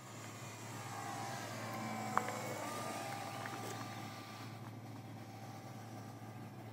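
Radio-controlled P-47 model plane flying past, its motor and propeller note swelling and shifting in pitch as it goes by, then fading. There is a sharp click about two seconds in.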